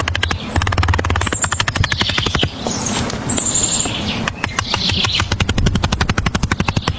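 A fast, even run of sharp taps or knocks, about ten a second, with birds chirping.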